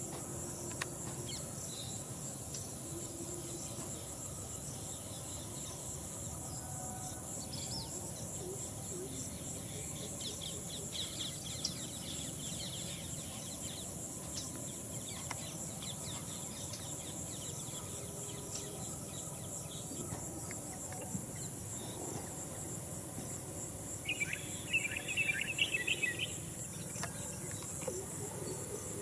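Steady high-pitched trilling of insects such as crickets, with a short burst of bird chirping about 24 seconds in.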